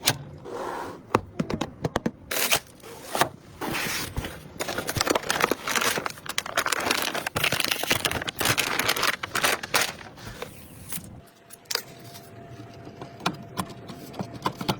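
Computer parts and their packaging handled by hand: crinkling and tearing of packaging with many sharp clicks and knocks of parts being fitted. It goes quieter for the last few seconds, leaving scattered clicks.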